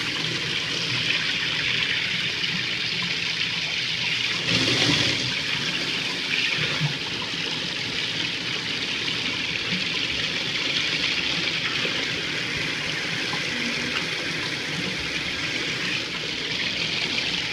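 Toilet flushing, water rushing steadily through the bowl and tank, with a louder surge about five seconds in; a toothbrush is being flushed as a test.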